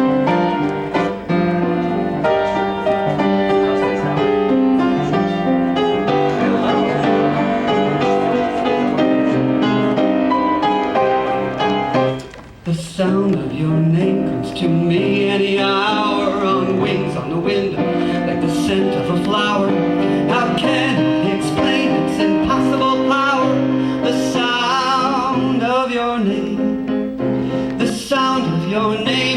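Live piano accompaniment playing the slow introduction to a cabaret ballad, with a wavering melody line over it in the second half; there is a brief pause about halfway through.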